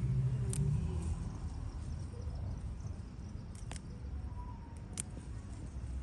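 A steady low rumble, with three short sharp clicks from coriander stems being snapped off by hand: one about half a second in, one near the middle and one about five seconds in.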